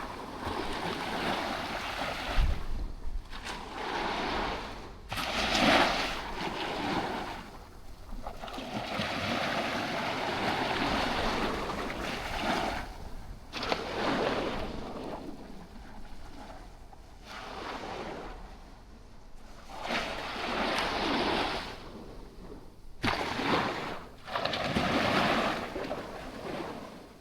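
Sea waves washing up on a sandy beach, each wash swelling and fading away every few seconds.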